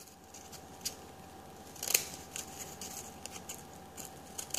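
Scissors snipping into folded card in a few separate quiet cuts, the loudest about two seconds in.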